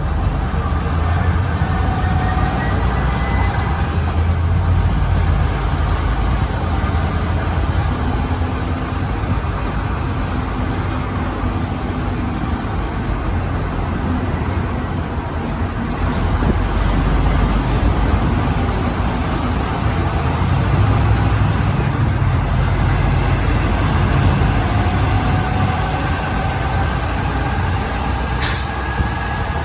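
Heavy truck driving on a highway: steady engine drone and road rumble, with the engine pitch drifting slowly up and down. A short sharp click sounds near the end.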